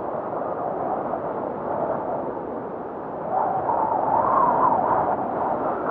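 Snowfall ambience soundscape: a steady rushing noise that swells about three seconds in, with a wavering whistle rising and falling over it.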